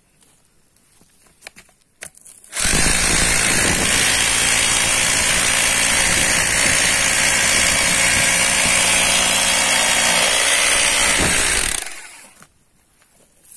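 Makita electric drill spinning an earth-auger bit down into soil. It starts abruptly about two and a half seconds in, runs at a steady speed for about nine seconds, and then stops with a short run-down.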